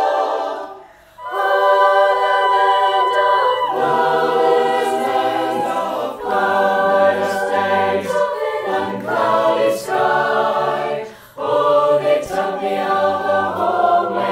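Mixed choir of young male and female voices singing in harmony, holding sustained chords that change every second or two. The sound breaks off briefly about a second in and again about eleven seconds in, then resumes.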